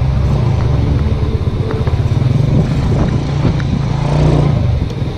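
Motorcycle engine running steadily on the road, with road and wind noise.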